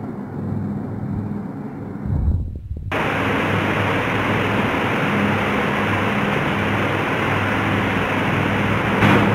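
Steady rushing background noise with a low hum, which cuts abruptly to a louder, brighter hiss about three seconds in and then holds steady.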